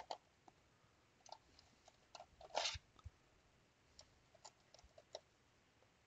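Faint, scattered clicks and light taps from a small screwdriver and fingers working on a plastic tablet housing, with one short scrape about two and a half seconds in.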